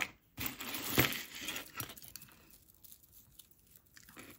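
Packaging rustling as jewelry is unpacked and handled: a burst of rustling lasting about two seconds, with a sharp click about a second in, then fainter scattered rustles.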